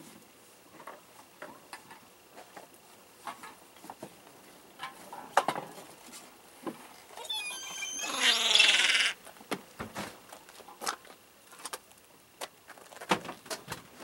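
Gulls calling: scattered short calls, then a quick run of notes and a loud call lasting about a second, about eight seconds in.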